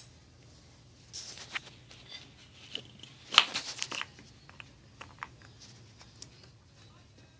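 Small plastic lid knocking and scraping against carpet and baseboard as a Pomeranian puppy paws at it and mouths it: a run of scratchy knocks starting about a second in, the loudest in the middle, then a few light clicks.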